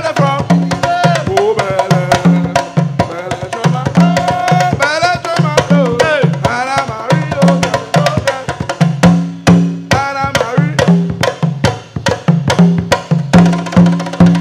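Percussion ensemble playing a fast rhythm, hands striking a djembe among other drums, with a deep drum note repeating steadily underneath. Voices sing over the drums in the first half and drop out about halfway through.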